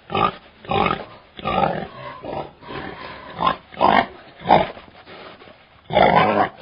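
Domestic pig grunting in a series of short, irregular grunts, with a longer, louder one near the end.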